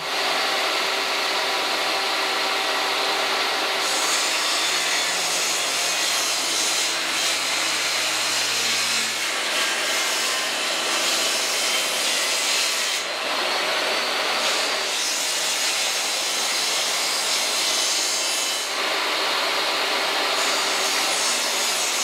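Portable jobsite table saw running and ripping a sheet of birch plywood into strips. The cut is loud and steady, growing sharper about four seconds in and again near the end as the sheet feeds through the blade.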